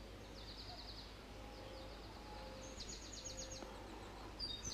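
Faint outdoor ambience with a small bird chirping: two quick runs of short, high chirps, one about a second in and one near three seconds in, over a low steady background noise.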